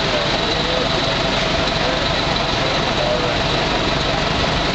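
Steady din of a busy city street at night: traffic and idling vehicle engines, including a city bus, blended into one continuous roar.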